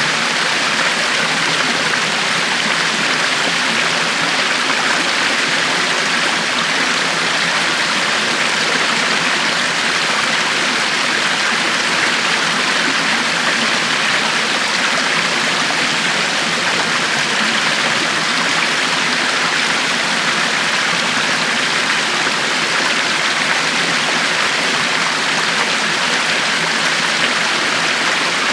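River water flowing over stones in a steady, unbroken rush, hiss-like and bright, with no changes.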